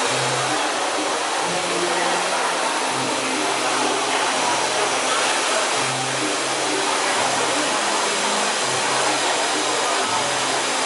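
Dyson Supersonic hair dryer running steadily: a constant rush of air with a thin high whine.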